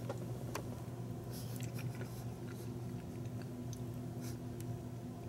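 A person chewing a forkful of chicken pot pie filling, with soft faint mouth sounds and small scattered clicks, over a steady low hum.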